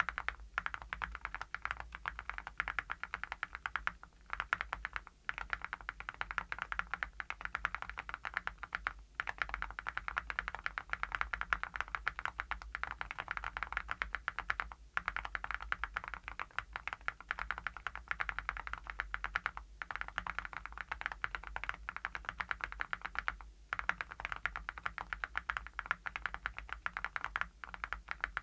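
Fast, steady typing on a mechanical keyboard fitted with full metal (satin gold) Awekeys keycaps: a dense run of sharp key clacks, broken by a few short pauses.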